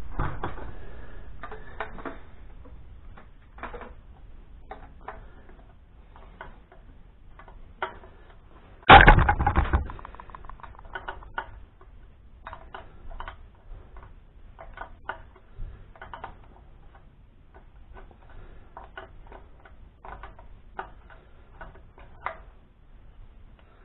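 A 1/2 inch spanner on the mounting nuts of a Weber 32/36 carburettor, making irregular clicks and taps as the nuts are worked loose. There is one louder noise lasting about a second, about nine seconds in.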